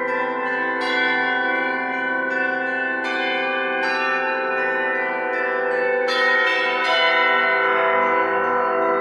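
Church bells ringing: several bells struck in turn, each new strike sounding over the long, overlapping ring of the ones before.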